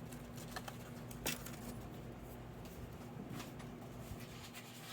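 Faint handling of craft materials on a table: a few light taps and rustles, with one sharper click about a second in, over a steady low hum.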